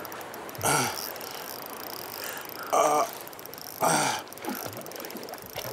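Shimano Stella spinning reel being cranked against a hooked brown trout, a steady whirring mechanical noise, with three short vocal exclamations over it.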